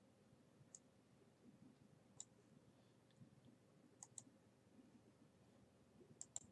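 Faint computer mouse clicks over quiet room tone: about six sharp clicks, two of them in quick pairs about four seconds in and near the end.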